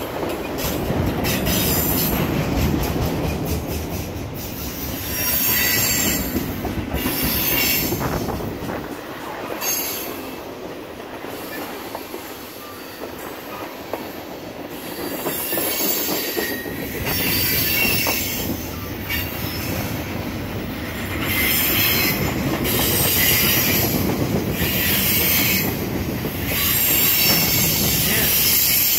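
Freight cars of a Norfolk Southern mixed freight train rolling past at close range, with a continuous rumble of wheels on rail. A high squeal from the wheels comes and goes over and over.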